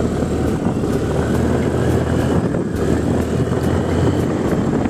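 Motor scooter riding along: a steady engine drone mixed with wind rumble on the helmet-mounted microphone.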